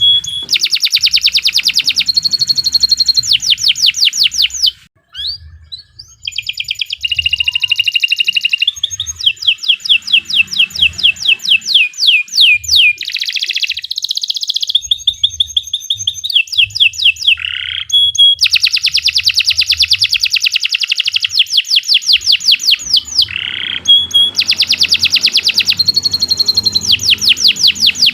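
Domestic canary singing a long, vigorous song of fast trills, each a rapid run of the same note repeated. The song switches from one trill to the next with hardly a break, apart from a short pause about five seconds in.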